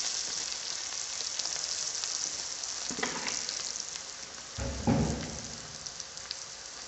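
Coconut oil sizzling steadily in a wide uruli, frying coconut pieces, curry leaves, shallots and spices. There is a short low thud about five seconds in.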